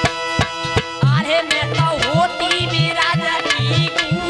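Devotional bhajan music: a harmonium holds steady chords over a hand drum keeping an even beat, its bass strokes sliding in pitch. From about a second in, a wavering melodic line, likely a voice singing, joins above them.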